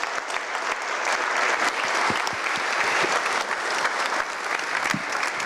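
Audience applauding in a lecture hall: a steady patter of many hands clapping at the end of a talk.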